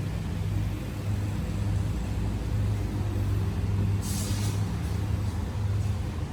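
Steady low mechanical hum, with a brief hiss about four seconds in.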